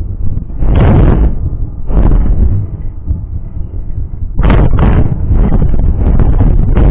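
Wind buffeting the microphone of a bike-mounted action camera while riding, a loud deep rumble with gusts that swell about a second in, again at two seconds, and more steadily from about halfway through.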